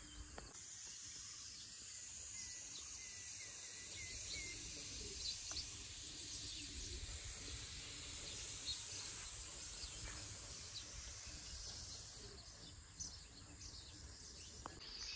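Faint outdoor natural ambience: a few short bird chirps, most of them a couple of seconds in, over a steady high hiss and a low rumble.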